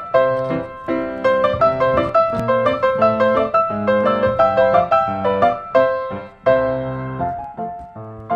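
Background piano music: a steady run of struck notes, several a second.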